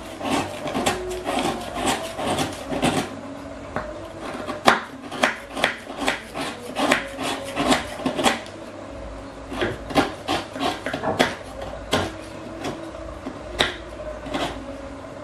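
Kitchen knife cutting and scraping a hard block of palm sugar on a wooden cutting board: repeated, irregular knocks of the blade on the wood, about two a second, with scraping in between. The sugar is hard, so each cut takes force.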